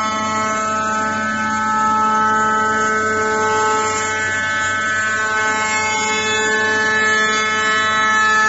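Five-axis CNC router spindle running at speed while its cutter mills a solid wood part, giving a loud, steady whine made of several held pitches.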